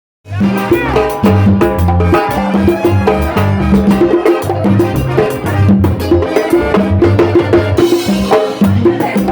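Up-tempo Latin tropical dance music with timbales playing a dense, steady beat over a bass line, starting abruptly just after the beginning.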